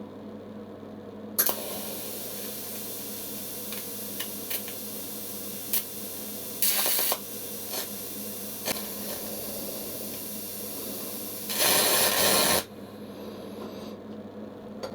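Electric welding arc struck about a second in, hissing steadily as it makes a second pass over a copper-phosphorus filler bead on a copper-to-stainless tube joint. A few short sharp pops come through, with a louder stretch of about a second before the arc cuts off near the end.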